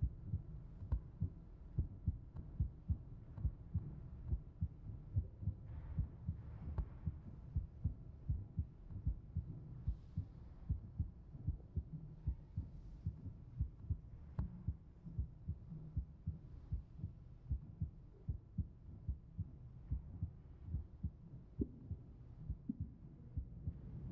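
Amplified heartbeat: a steady, regular run of low thumps over a faint hum.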